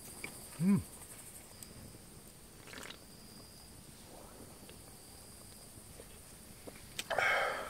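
Insects chirping faintly and steadily in the background. Under them, a short hummed voice sound comes about a second in, and a brief rustling burst comes near the end.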